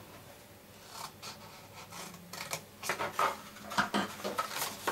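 Folded patterned paper being handled and creased, a run of short crisp rustles and clicks starting about a second in.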